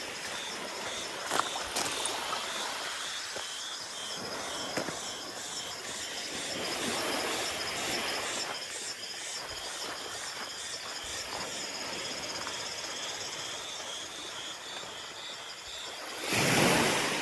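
Beach ambience: a soft steady wash of surf with an insect chirping about three times a second over it. A louder rush of noise swells up near the end.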